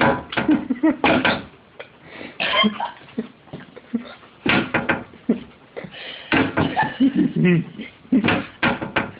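A young goat butting its reflection in a mirror: repeated sharp knocks and bumps against the mirror, coming in irregular clusters.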